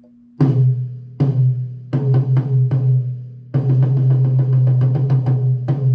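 Miked rack tom struck by a drummer: three single hits about a second apart, a few quicker strokes, then a fast even run of strokes for about two seconds and one last hit, each ringing with a low pitch. A little of the low end around 60 Hz has been cut on the tom's channel so it is not so boomy.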